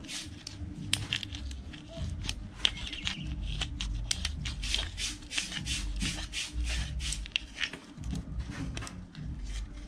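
Scissor point twisting and scraping into a small plastic ring to bore out its hole: a run of short, irregular rasping scrapes, about two or three a second.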